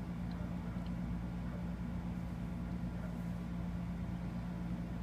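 Steady low background hum with a faint even hiss: room noise, with no distinct events.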